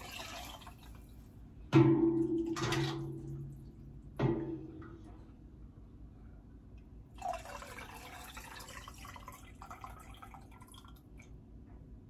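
A ladle knocks against a stainless steel canning funnel and pot three times, between about 2 and 4 seconds in, each knock leaving a short metallic ring. Later, broth is poured through the funnel into a glass quart jar, giving a spell of splashing and trickling.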